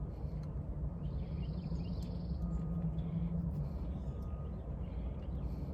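Outdoor background: a steady low hum with faint high chirping over it.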